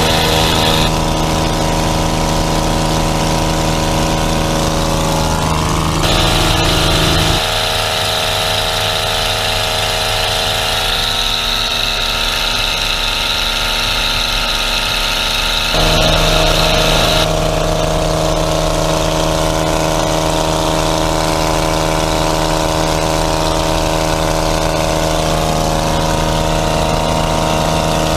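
Utva 66 light aircraft's piston engine and propeller running steadily in flight, heard from inside the cabin. Its pitch and balance shift abruptly a few times.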